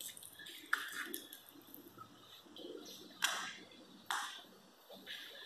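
Footsteps scuffing on a hard floor: a few sharp scrapes and clicks, the two loudest under a second apart in the second half, over a faint low murmur.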